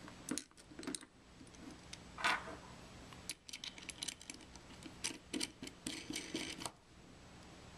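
Small metallic clicks and clinks of a stainless steel tri-clamp being fitted around the sampler body and its wing nut screwed down, with a brief scrape about two seconds in and a run of quick clicks in the middle seconds.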